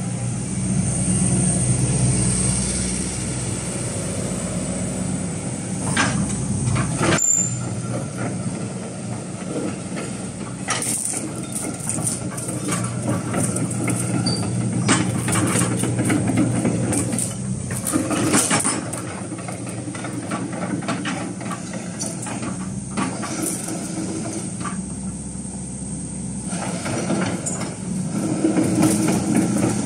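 Hitachi ZX120 excavator's diesel engine running steadily while the machine works its boom and travels on its steel crawler tracks, with irregular clanks and knocks from the tracks and arm.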